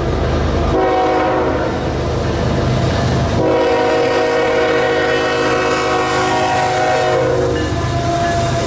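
Bridge vibrating as traffic crosses it: a steady low rumble with a droning, pitched hum laid over it. The hum comes twice, briefly about a second in and then longer and stronger from about three and a half seconds in, fading shortly before the end.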